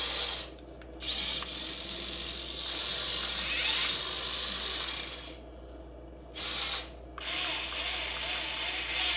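Electric gear motors of a Huina 1580 RC excavator whirring as it drives its tracks and swings its cab, running in several stretches with short pauses between them.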